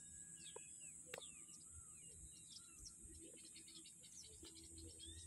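Faint outdoor ambience: small birds chirping in short scattered calls, with a quick run of ticking calls about three seconds in, over a steady high hiss.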